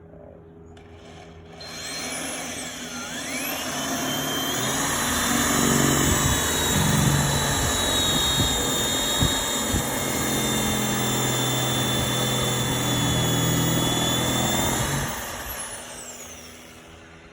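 Black & Decker electric drill boring a 7/8-inch hole through exterior siding. The motor whine climbs as it spins up about two seconds in, then runs steadily under load with the bit grinding into the wall. It stops about fifteen seconds in.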